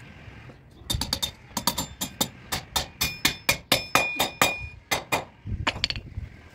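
Claw hammer striking an aluminium solar-panel mounting rail and its bracket: a quick run of blows, about three or four a second, several ringing with a metallic tone.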